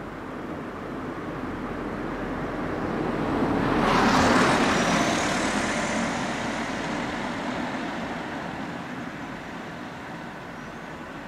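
A road vehicle passing close by, its noise swelling to a peak about four seconds in and then fading away, over steady street traffic.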